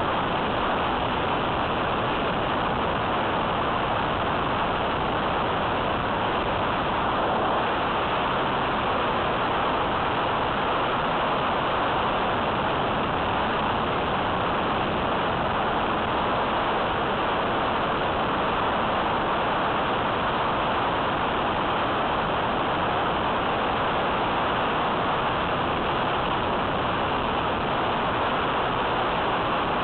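Steady rush of airflow and the electric motor and propeller of an E-flite Apprentice S15e RC plane in flight, as picked up by a mini camera mounted on the plane.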